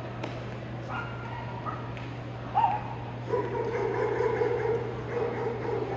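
A dog yipping: a few short, high yips in the first half, then from about halfway a longer high-pitched run of yapping with brief breaks.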